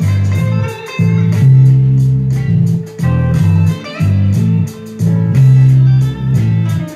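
Electric bass guitar plucked with the fingers, playing a repeating low blues riff in phrases of about two seconds, with fainter higher notes over it.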